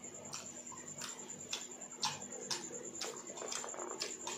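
Wet eating sounds of kadhi and rice being chewed and squished by hand: irregular sharp smacking clicks, roughly two a second, over a faint steady high whine.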